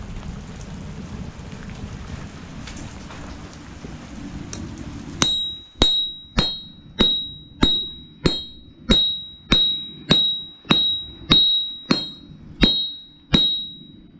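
Rain and wind noise, then from about five seconds in a hammer striking a mild-steel knife blade on an anvil in a steady rhythm, about fourteen blows at under two a second, each with a ringing high metallic tone.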